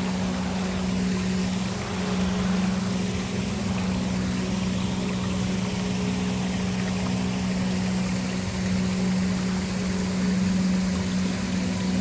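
Waterfall rushing steadily, with a low, steady drone of background ambience underneath.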